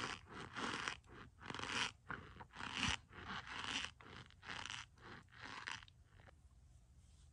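Packed powdered starch in a cup crunching and scraping as a stick is worked into it, in a quick run of short crunches that stops about six seconds in.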